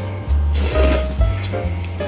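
Background music with a heavy bass beat.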